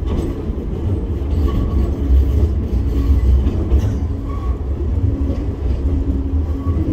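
Enoshima Electric Railway 300 Series electric train running along the track, heard from inside the front car: a continuous low rumble of wheels on rail with a steady low hum and a few faint clicks.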